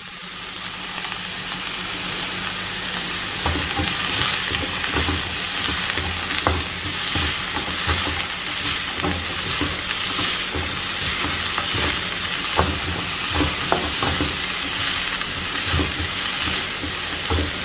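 Chopped onions and shallots frying in a non-stick kadai, a steady sizzle that builds over the first couple of seconds. From about three seconds in, a wooden spatula scrapes and knocks against the pan as they are stirred.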